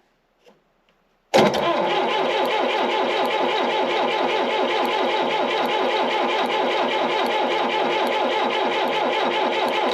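The starter cranking the gasoline engine of a 1972 Allis-Chalmers M65 road grader, which does not start. It sets in suddenly about a second in as a steady, rapidly pulsing churn and stops at the end. The owner thinks the engine cranks slower than it should and suspects a slightly worn starter.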